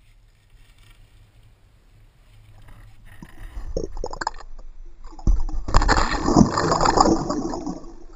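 Water sloshing and splashing around a submerged camera as a pike is released by hand, loudest for about two seconds past the middle. Before that, faint handling noise and a few knocks.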